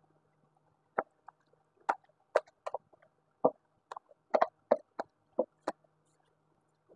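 Irregular short knocks and scrapes of a plastic spatula against a metal tray and bowl as corn kernels are pushed into the bowl, about a dozen taps in all.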